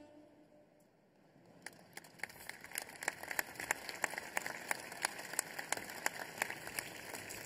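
Audience applauding: scattered claps begin about a second and a half in and build into steady clapping.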